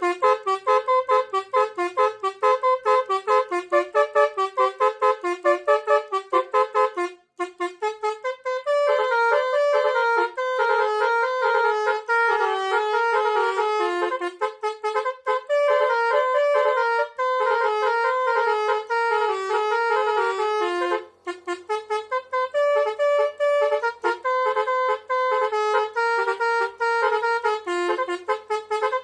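Indonesian 'telolet' bus horn, a multi-trumpet musical horn, playing tunes of rapid stepped notes. The notes are short and choppy at first; after a brief break the phrases run on longer, with another short pause later.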